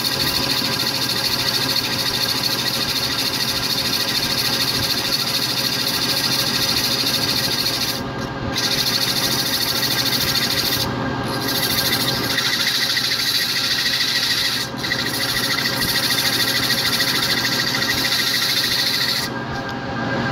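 Ikegai A20x40 gear-head engine lathe running steadily with a wooden rosette spinning in it, while hand-held sandpaper hisses against the turning wood. The hiss breaks off briefly four times, about 8, 11, 15 and 19 seconds in, as the paper is lifted.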